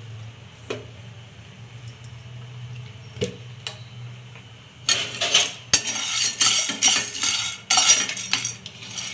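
A metal spatula scraping and clinking against a kadai, stirring field beans as they dry-roast. A few separate clicks come first, then about five seconds in a quick run of scraping strokes lasts some three seconds, over a low steady hum.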